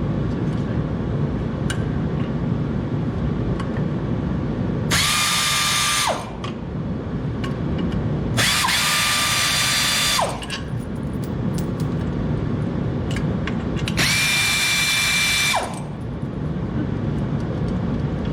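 Power drill run in three short bursts, backing out the bolts that held the clutch pressure plate springs compressed. Each burst is a steady motor whine whose pitch drops as the trigger is released.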